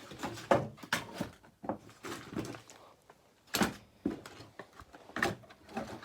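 Irregular knocks and clunks of hand tools being handled and set down, about a dozen short hits spread unevenly over several seconds.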